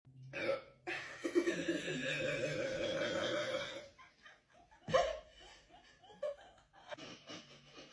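A long, drawn-out human burp lasting about three seconds on a steady pitch. About five seconds in, short broken bursts of laughter follow.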